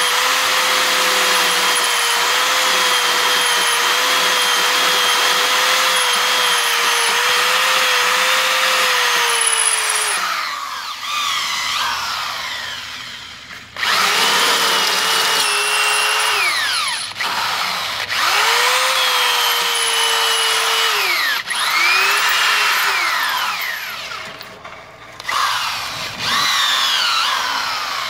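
Handheld electric drill with a carbide tile-and-glass bit boring into 1/8-inch steel tubing: a steady motor whine for about ten seconds, then the motor winds down and is started and stopped several times, each run rising and then falling in pitch.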